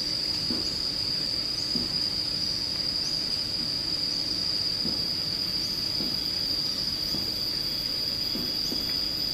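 Insects in a tropical countryside, crickets or similar, making a continuous high-pitched drone. Short rising chirps repeat about once a second over it, with faint low pulses underneath.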